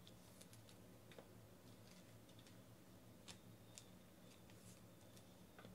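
Near silence: a faint steady hum with scattered, irregular faint clicks and ticks from trading cards being handled and set down.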